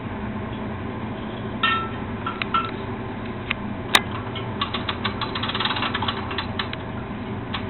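Metal clinks, one sharp click about four seconds in, then about two seconds of quick ratcheting clicks from a portable crane's hand winch being cranked to take up the weight of a chiller compressor, over a steady machinery hum.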